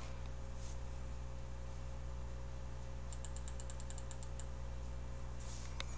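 Faint computer keyboard clicks, a quick run of about a dozen keystrokes lasting just over a second near the middle, over a steady low hum.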